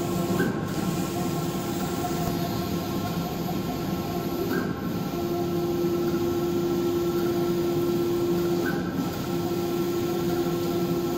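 Maxima HD 3204 wide-format solvent printer running a print job: its print-head carriage sweeps back and forth across the bed with a steady motor whine over a constant machine hum. A brief change in the sound recurs about every four seconds, as the carriage reverses at the end of each pass.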